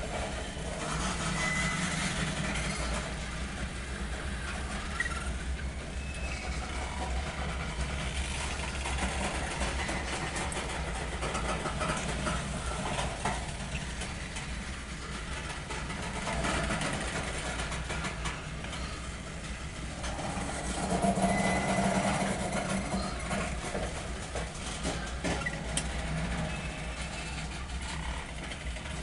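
Loaded coal train's hopper cars rolling slowly past: a steady rumble of wheels on rail with scattered clicks.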